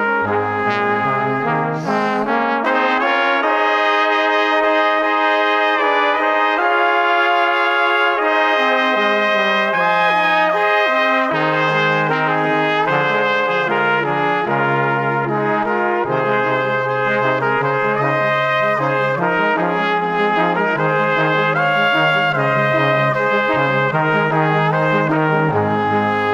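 Background music played on brass instruments, with several held notes that change every second or so.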